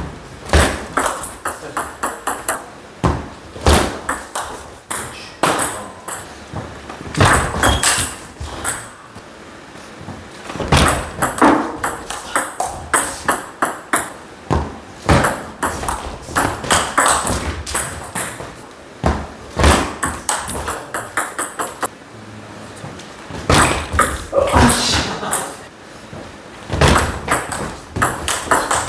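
Table tennis rallies: the celluloid-type ball clicking off the rubber-faced bats and the table top in quick runs of sharp knocks, several rallies in turn with short pauses between points.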